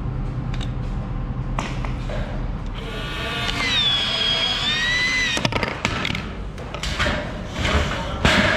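PVC pipe being pushed through the punched holes of steel studs, squealing for a couple of seconds in the middle as the plastic rubs on the metal edges. It ends in a sharp knock, followed by scattered knocks and thumps as the pipe is worked through.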